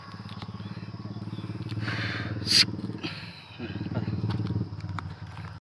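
A motorcycle engine running at low revs with a fast, even firing pulse, and a brief sharp rushing noise about two and a half seconds in.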